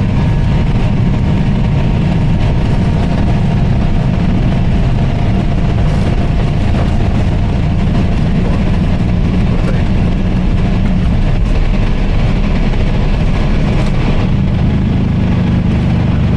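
Airbus A320 engines and airflow heard from inside the aircraft as a loud, steady, low rumble during the takeoff and climb.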